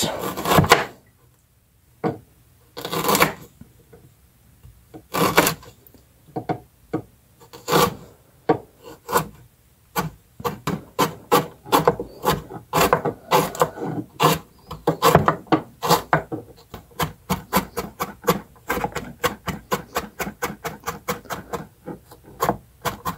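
Chef's knife cutting fresh ginger root on a plastic cutting board. At first come a few slow, separate slicing strokes, then from about halfway on quick, steady chopping at several knife strikes a second as the strips are diced.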